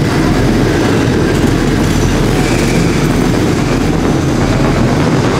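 Speedway bikes' 500cc single-cylinder methanol engines running loudly and steadily.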